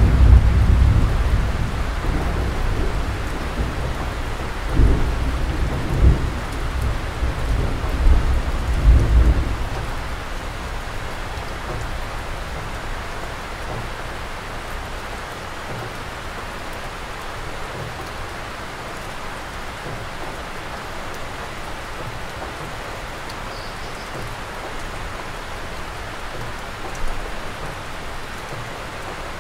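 Rain falling steadily. Deep, uneven rumbling runs under it for about the first ten seconds, then fades, leaving an even rain hiss.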